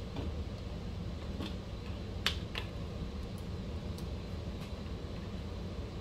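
A few light, sharp clicks and taps of small plastic parts being handled, the loudest about two seconds in, over a steady low background hum.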